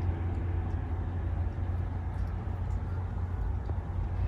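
Steady low outdoor background rumble with no distinct events, of the kind distant traffic makes.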